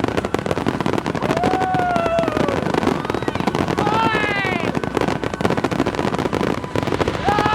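Dense, continuous crackling and rapid banging of a large fireworks display. Over it, spectators cry out in excitement a few times.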